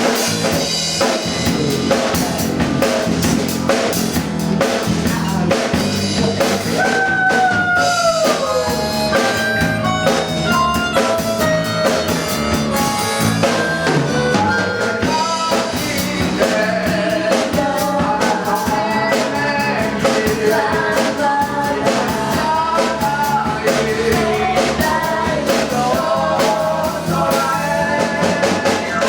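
Large band playing live, with a drum kit keeping the beat under a melodic lead line that slides down in pitch about seven seconds in.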